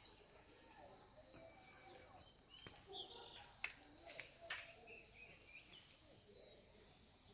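Faint outdoor ambience: a steady high insect drone, with a bird repeating a short whistle that slides downward, about every three and a half seconds, plus a few other brief chirps.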